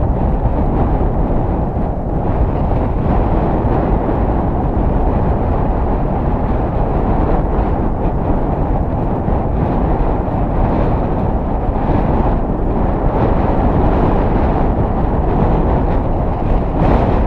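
Wind buffeting the microphone of a camera mounted on a moving bicycle: a loud, steady, low rumble that swells slightly a few times.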